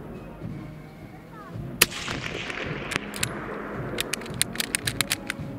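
A single rifle shot from a .303 No. 1 Mk III* SMLE, about two seconds in, with a short echo trailing after it. A quick run of sharp clicks and knocks follows near the end.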